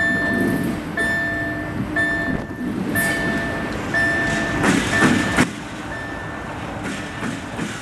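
A repeating electronic beep, about one tone a second, each lasting most of a second, over a rumbling background, with a louder noisy stretch about five seconds in.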